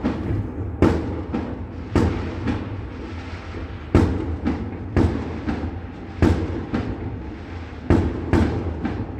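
Fireworks going off: about a dozen sharp bangs at uneven intervals, some only half a second apart, each trailing off in an echo, over a continuous low rumble of distant bursts.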